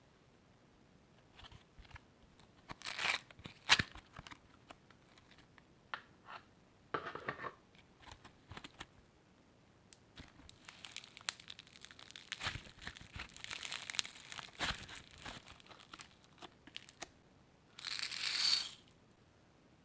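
Slime being worked and mixed by hand: scattered sticky clicks and crackles, thickening into denser crackling in the second half, with a short louder rush of crinkling near the end.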